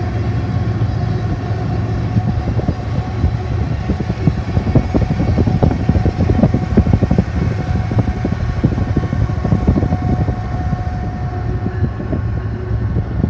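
BNSF diesel locomotive running past on the rails, heard from a car driving alongside it. The car's steady road and engine noise blends with the locomotive's hum, and a run of rattling knocks comes in the middle for several seconds.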